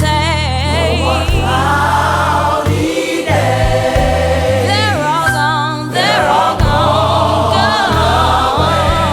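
Gospel choir singing with a band, a sustained, wordless-sounding stretch of choral vocals over steady bass.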